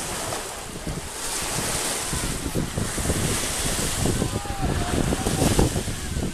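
Small waves washing and breaking on a pebble shore, the hiss swelling and ebbing, with wind buffeting the microphone in gusts that grow stronger in the second half.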